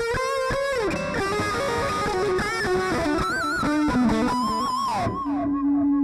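Electric guitar with a Stratocaster-style body played through a Zoom GFX-8 multi-effects processor: a lead line of single notes with string bends and vibrato. About five seconds in it settles into one long steady tone.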